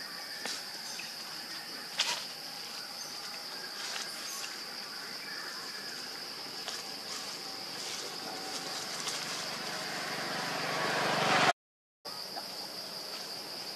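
Steady high-pitched insect drone, the kind made by crickets or cicadas, with a few sharp clicks over it, the sharpest about two seconds in. Near the end a rushing noise swells up and cuts off abruptly into a brief silence, after which the drone resumes.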